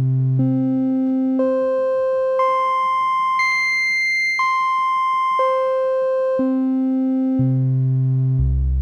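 Electronic demonstration tone stepping up in pitch an octave at a time, about once a second, from a deep bass hum to a high tone, then stepping back down the same way. Each new note starts with a faint click. It demonstrates how a speaker's vibration rate sets the pitch.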